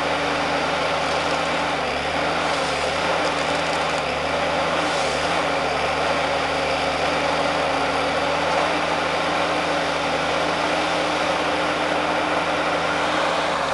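Forestry tree harvester's diesel engine running steadily, its pitch dipping slightly twice in the first few seconds.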